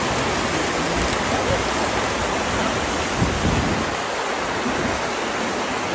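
Fast water rushing and churning as whitewater through a concrete channel, a steady, unbroken rush.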